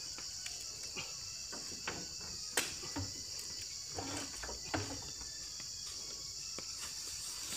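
Steady high chirring of insects, with a handful of short, sharp knocks in the first five seconds as oil palm fruit bunches are hoisted with a pole onto a truck bed.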